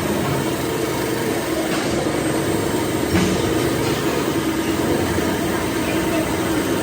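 Workshop machinery running steadily with a constant hum, with a couple of faint knocks about two and three seconds in.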